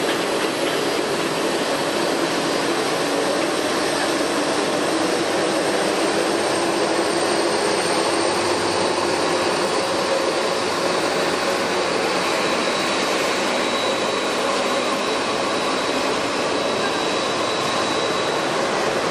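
Jet airliner engines running steadily: a broad, even rush with a faint high whine.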